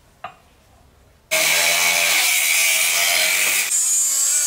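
Abrasive cut-off wheel grinding through a steel tube, coming in suddenly and loud about a second in, with a high whine whose pitch shifts near the end. A brief knock comes just before.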